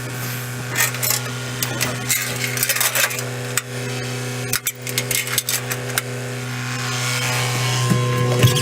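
CAT 924F wheel loader's diesel engine running steadily with a constant hum. Over it comes a run of sharp cracks and clicks from about one second in to about six seconds in, as the loader works the tree over and wood snaps and breaks.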